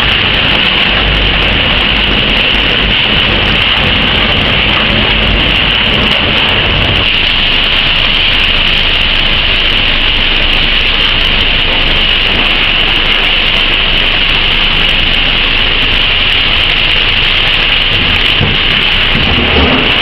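Industrial refrigerator and washing-machine shredder running with its feed conveyor: a loud, steady grinding din, with a heavier low rumble that eases off about seven seconds in.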